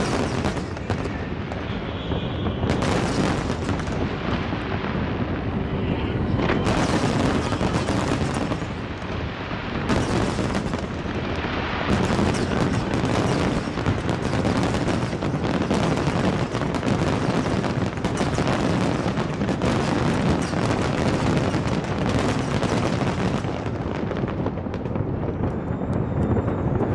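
Aerial fireworks bursting in a dense, near-continuous barrage of overlapping bangs.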